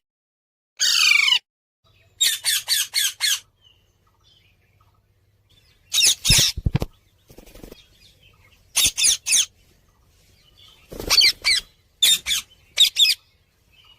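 Parrots squawking: repeated harsh, loud calls in short clusters, including a quick run of about five calls around two seconds in.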